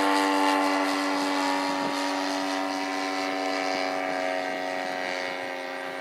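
RC model airplane's motor and propeller running with a steady drone, slowly fading as the plane climbs away carrying a skydiver figure.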